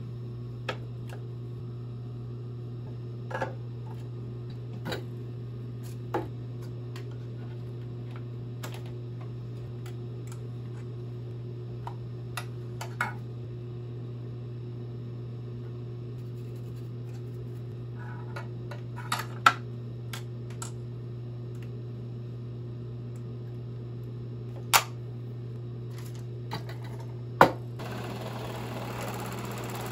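Scattered light clicks and taps from threading a Juki industrial overlock serger by hand, over a steady low hum. Near the end the serger starts sewing, with a dense mechanical running noise.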